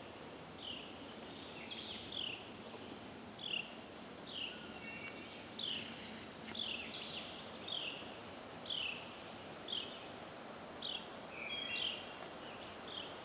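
A bird calling over and over, a short high note sliding downward about once a second, over the steady rush of a forest creek.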